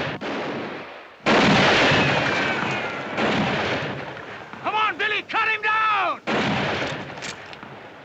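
Gunshots from a western gunfight echoing among rocks: three loud shots, at about one, three and six seconds in, each dying away slowly. The first is followed by a falling ricochet whine, and a run of short, wavering high-pitched sounds comes between the second and third shots.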